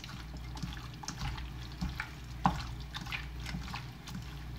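A hand tossing raw smelt through beaten egg in a bowl: soft, wet squelching with light taps against the bowl, one a little sharper about halfway through.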